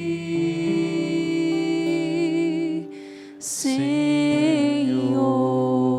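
Slow Portuguese worship song: a singer holds long, vibrato-laden notes on 'seguir' over a plucked guitar accompaniment, with a short break for breath about three seconds in.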